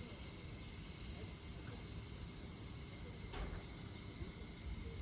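A chorus of insects calling: a continuous high-pitched trill that drifts slightly lower and turns faintly pulsing. A brief knock sounds about three and a half seconds in.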